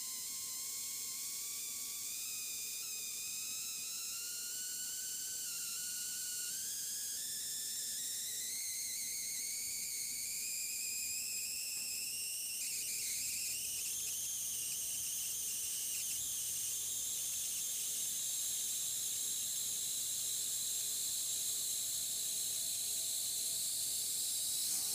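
High-voltage DC discharge across a small electrode gap, whistling like a tea kettle. Its pitch rises steadily as the voltage is wound up. About halfway through it breaks into a higher, hissing whistle, which the builder takes for the discharge hitting its resonant point.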